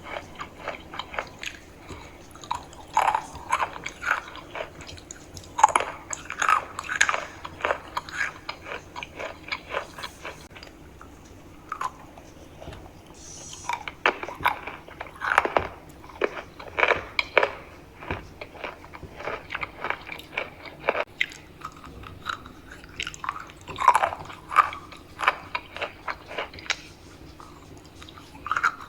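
Close-up biting and chewing of something crunchy: bursts of sharp crunches, a few seconds each, with quieter chewing between them.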